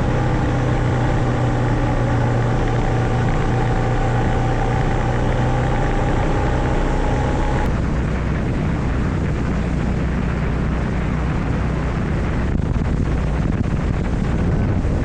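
Honda GB350's single-cylinder engine running at a steady cruise while riding, a steady drone with a low hum and a higher whine. About halfway through the sound changes suddenly to rushing wind and road rumble over the engine.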